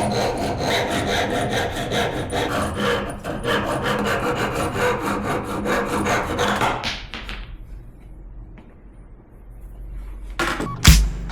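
A wooden mallet blank being worked on a running wood lathe, with a dense, continuous scraping against the spinning wood that fades away about seven seconds in. Music starts near the end.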